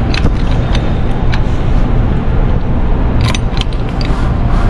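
Steady low rumble with a few sharp metallic clinks about three seconds in and near the end, from a wrench and chain knocking on a roller coaster car's steel wheel assembly as a nut is worked loose or tightened.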